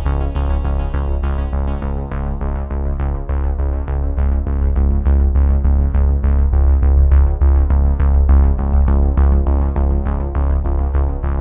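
Background electronic music: a stream of evenly repeated synthesizer notes over a steady deep bass, with the treble falling away about two seconds in.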